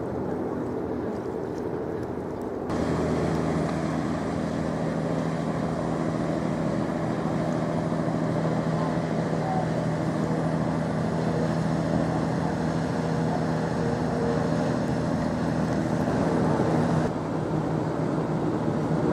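Diesel engine of a white river passenger boat running close by, a steady low drone with a hum. It comes in abruptly about three seconds in and stops abruptly about two seconds before the end, with quieter wind noise around it.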